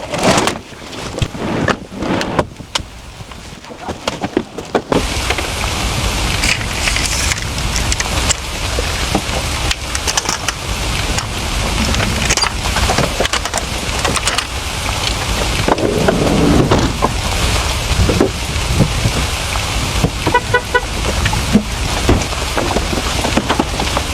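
Rain on a motorhome: scattered drops ticking for the first few seconds, then a sudden heavy downpour about five seconds in that hisses and patters steadily. A short run of quick high beeps comes near the end.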